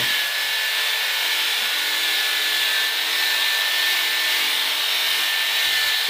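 Steady hissing machine noise with a thin, constant high whine, from workshop machinery running.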